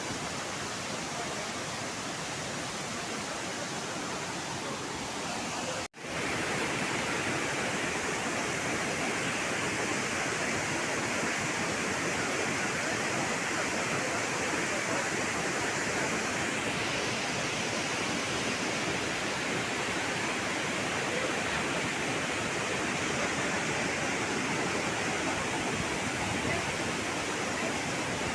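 Waterfall rushing, a steady roar of falling water. It cuts out briefly about six seconds in and comes back a little louder.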